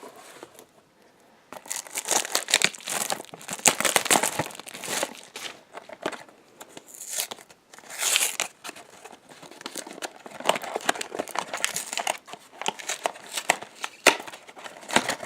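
A Funko Mystery Minis blind box being torn open by hand, its packaging crinkling and tearing in quick irregular bursts that start about a second and a half in.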